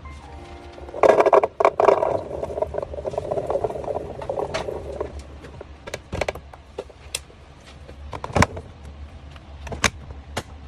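Containers and packaging being handled and set down while restocking a fridge: a stretch of rustling clatter about a second in, then scattered sharp clicks and knocks.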